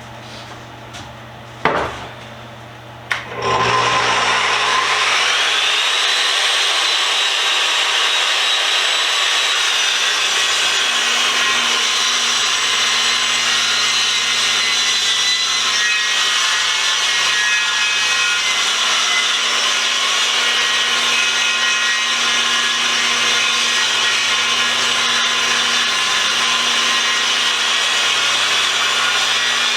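Table saw started about three seconds in after a couple of clicks, its whine rising as the blade comes up to speed, then running steadily as it rips an ash board lengthwise.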